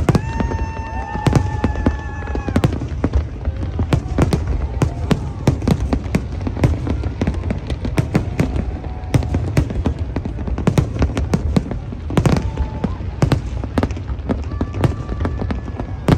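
Fireworks display going off: a rapid, irregular stream of bangs and crackles over a constant low rumble. A long high tone sounds over them for the first two seconds or so.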